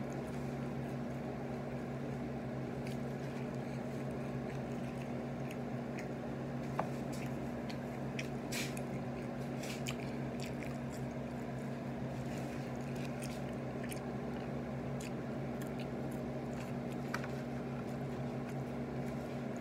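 A person chewing and biting chicken nuggets, with scattered small mouth clicks, over a steady low hum.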